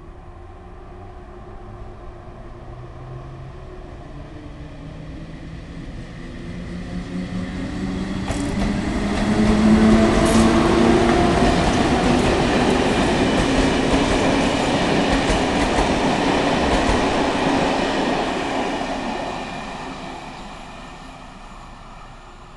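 InterCity passenger train passing by: its noise builds up, is loudest through the middle with wheels clicking over the rail joints, then fades away near the end.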